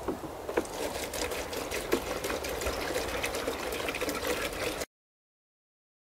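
Water being poured from a large plastic bottle into a clear plastic bottle, a steady splashing pour with many small splashes. It cuts off abruptly about five seconds in.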